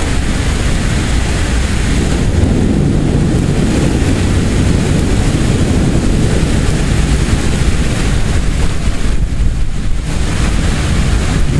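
Strong thunderstorm wind and rain, the gusts buffeting the microphone in a loud, steady rush heavy in the low end.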